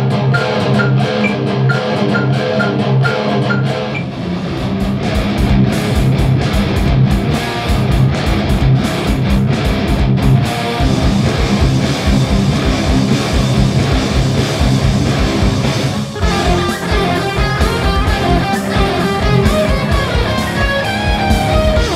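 Electric guitar tuned to drop C playing a low rhythmic riff, with a metronome ticking through the first few seconds. Dense low strokes drive the riff from about four seconds in, and higher notes join from about sixteen seconds in.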